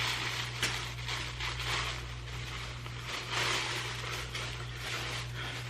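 Rustling and crinkling of a hoodie and its packaging being handled, in irregular bursts, over a steady low electrical hum.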